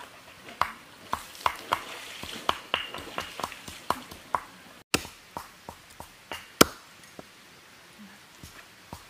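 Chicken being chopped with a cleaver on a wooden log chopping block: a string of sharp chopping knocks, about two a second, with one much louder blow about two-thirds of the way through.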